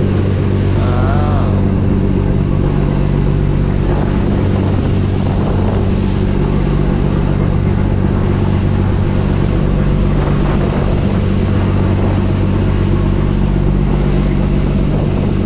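A fishing trawler's engine running steadily: an even, low hum with no change in speed.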